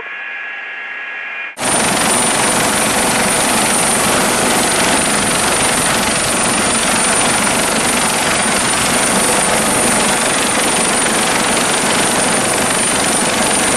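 A Coast Guard HH-65 Dolphin helicopter running on the ground, a loud steady noise with a high whine over it. It starts suddenly about a second and a half in, after a short, quieter muffled hum.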